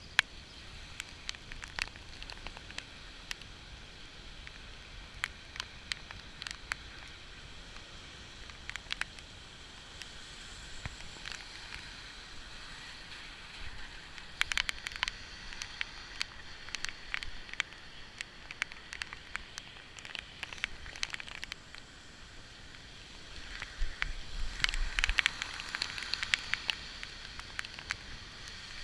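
Steady rain falling, a constant hiss dotted with many sharp drips and splats. It swells louder twice, most strongly a few seconds before the end, when a low rumble joins in.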